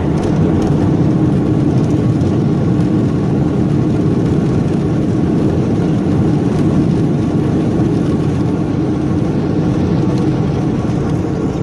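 Steady, loud rumble of a jet airliner's engines and landing roll heard inside the cabin, just after touchdown as the plane slows on the runway.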